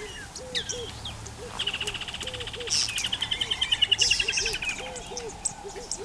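Wild birds calling: a fast, high trill lasting about three seconds, over a steady run of short, low hooting notes and scattered high chirps.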